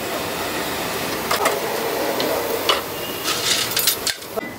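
Steel ladle clinking and scraping against steel pots and plates as sambar is served onto plates of vadas: a few sharp clinks over steady background noise.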